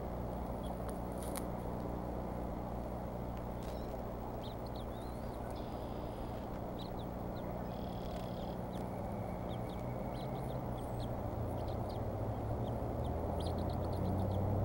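Outdoor nest ambience: a steady low rumble with a low hum that grows louder near the end, and many short, high bird chirps scattered through it.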